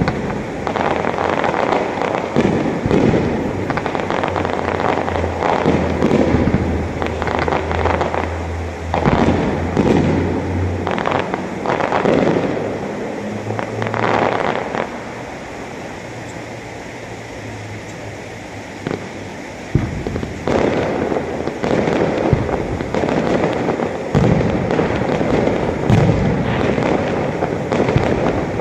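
Aerial fireworks display: a rapid barrage of shell bursts and crackle, easing off to a lower rumble past the middle before a sharp bang brings a fresh barrage.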